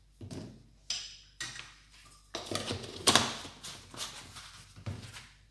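A metal spoon knocking and scraping against a stainless steel cooking pot as spices go in, in a string of irregular clinks, the loudest about three seconds in.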